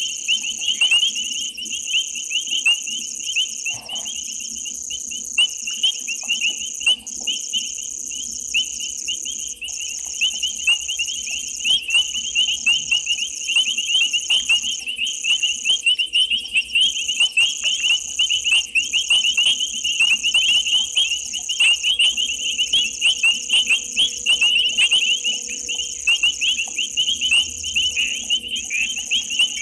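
Dense night chorus of calling insects and frogs: a fast, high-pitched pulsing chirping, with a steadier, even higher trill above it and a faint steady low hum underneath.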